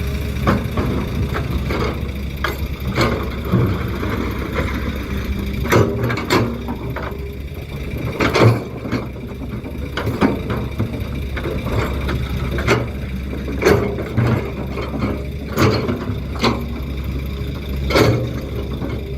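Heavy diesel machinery running steadily, with frequent sharp clanks and knocks of an excavator bucket working stone.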